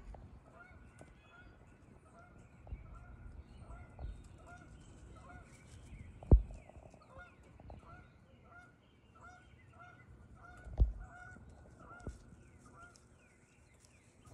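A bird giving short, repeated calls, about two a second, with fainter small-bird chirps higher up. Two sharp knocks stand out, about six and eleven seconds in.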